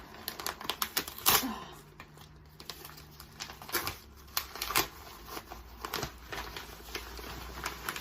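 A package being opened by hand: packaging and paper torn and crinkled in irregular crackles, loudest a little over a second in.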